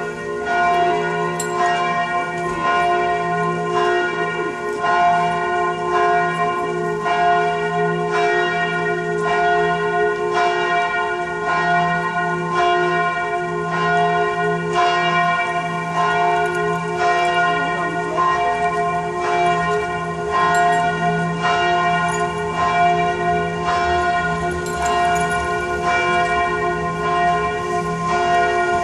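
Church bells pealing: several bells swinging and striking in an uneven, overlapping rhythm, more than one stroke a second, their tones hanging on and blending into one continuous ringing.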